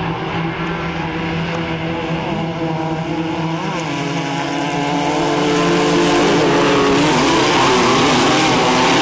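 Several Class 1-2/1600 off-road race buggies, air-cooled VW 1600 engines, racing past together on a dirt track, their engines revving up and down over one another. The sound grows louder about five seconds in.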